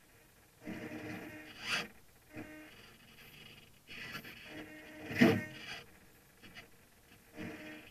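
Short whirring spells from the radio-control servos inside a model sailboat's hull, broken by a few knocks, the loudest about five seconds in.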